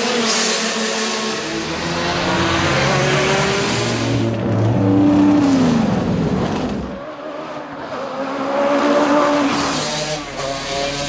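Racing car engines revving hard as the cars speed past, the note of one car falling in pitch as it goes by about five seconds in.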